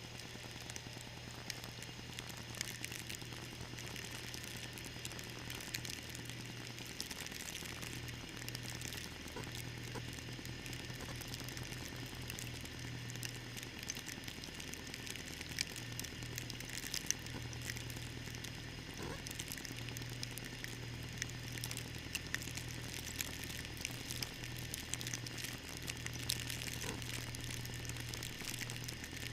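John Deere 318 garden tractor's engine running at a steady low hum under a constant crackling hiss with scattered ticks.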